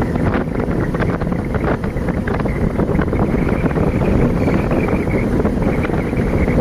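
Wind rushing over the microphone of a moving motorbike, a steady loud rumble that buries the engine and road noise.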